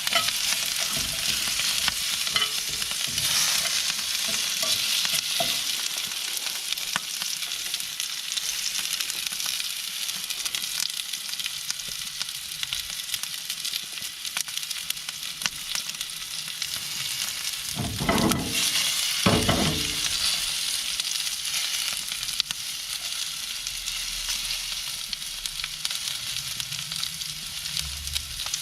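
Steak searing in hot oil in a cast-iron skillet over a wood fire: a steady sizzle with fine spitting crackle. About two-thirds of the way through, two short louder sounds break in.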